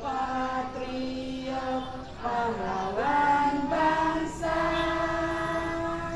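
Schoolchildren and teachers singing an Indonesian national song together in unison, a cappella, in long held notes, the melody stepping up about three seconds in.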